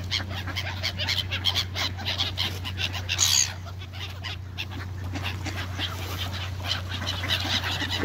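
A crowd of gulls and Canada geese calling over thrown food, with many short overlapping squawks and honks. One loud, shrill call comes about three seconds in.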